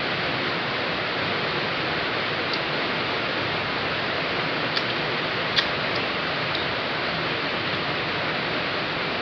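Heavy rain falling, a steady even hiss, with a few faint clicks as snail shells are handled.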